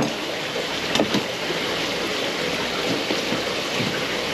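Chef's knife knocking a few times on a plastic cutting board as banded gizzard shad fillets are chopped, over a steady rushing noise.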